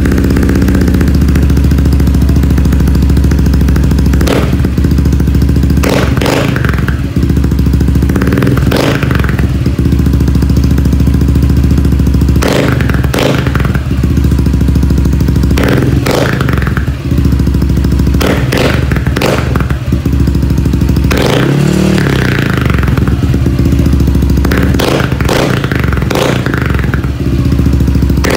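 Yamaha NMAX v2 scooter's single-cylinder engine running loud through an Apido V4 aftermarket exhaust, idling steadily with about a dozen short throttle blips and one longer rev about three quarters of the way through. The pipe has a deep, bassy note.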